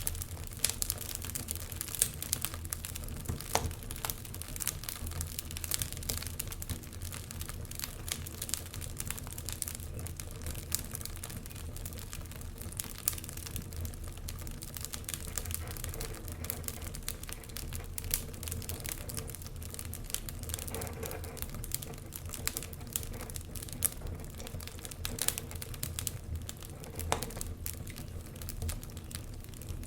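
Wood fire crackling in an open fireplace: many irregular snaps and pops over a low, steady rumble.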